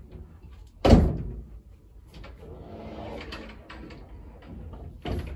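A single loud knock about a second in, then a softer knock near the end, with faint rustling between.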